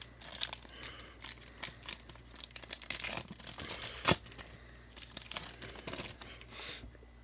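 A baseball card pack wrapper crinkling and being torn open by hand, an irregular run of crackles with one sharp snap about four seconds in.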